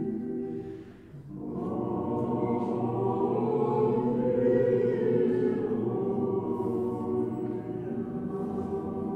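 A choir singing long, held chant-like chords as background music, with a short break about a second in before a new phrase swells and then holds.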